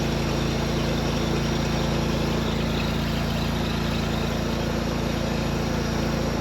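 Kubota engine running steadily at idle on its first start after repair, with the choke on.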